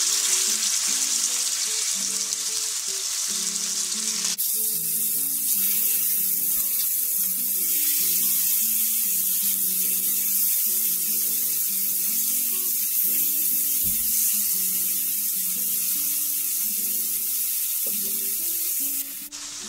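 Marinated boneless chicken thigh pieces sizzling in hot oil in a nonstick frying pan: a loud, steady frying hiss that grows brighter a few seconds in as more pieces go into the pan, and cuts off suddenly near the end. Background acoustic guitar music plays underneath.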